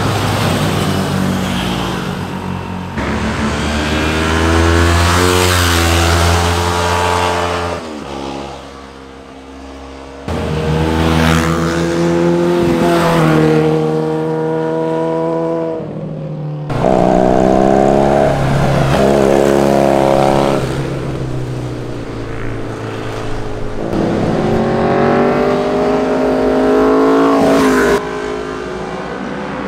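Sport motorcycles passing one after another, their engines revving up and shifting, with pitch rising and falling as each goes by. The sound changes abruptly every few seconds as one pass gives way to the next.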